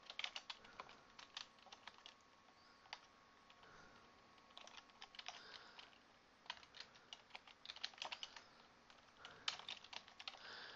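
Faint computer keyboard typing: runs of quick keystrokes in several bursts, separated by short pauses.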